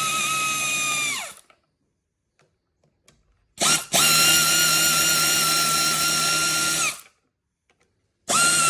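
A handheld electric power tool, such as a drill/driver, runs with a steady whine and winds down about a second in. After a pause of a couple of seconds it gives a short blip, runs again for about three seconds and winds down. It starts up once more near the end.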